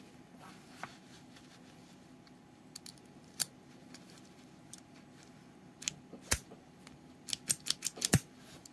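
Sharp metallic clicks from a 1:3 scale metal 1911 keychain toy pistol as its slide is worked by hand: a few scattered clicks, then a quick run of about seven near the end, the last one the loudest.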